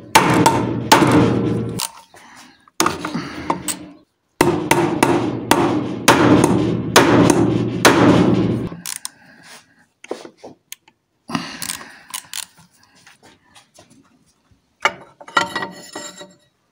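Metal-on-metal tool work on engine parts: three loud stretches of repeated impacts in the first nine seconds, then scattered clicks and clinks of parts being handled.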